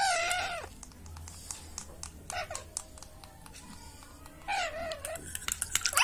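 Baby Alexandrine parakeet making begging calls as it is spoon-fed: one call at the start, a short one about two and a half seconds in, and another near five seconds. Light clicks come in between and bunch up near the end.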